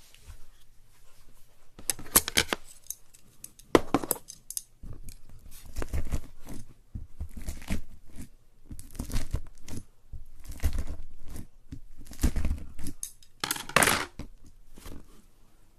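Slime handled close to the microphone: irregular bursts of crackling and tearing sounds, with louder clusters about two seconds in, around four seconds, and near the end.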